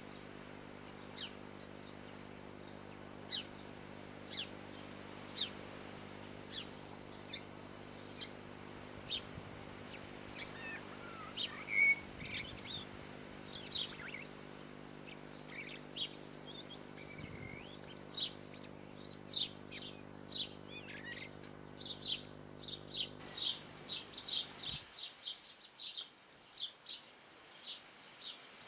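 High, thin great tit cheeps from inside the nest box, about one a second at first, then coming faster and more densely. Under them runs a steady electrical hum that cuts off about 25 seconds in.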